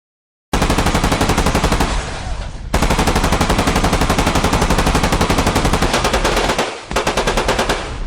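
Automatic machine-gun fire, about ten rounds a second, starting about half a second in: a burst of over a second, a short gap, a long burst of about four seconds, then two shorter bursts near the end.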